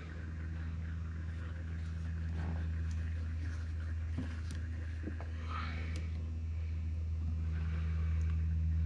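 A steady low mechanical hum, like a motor running, with a few light clicks and knocks over it.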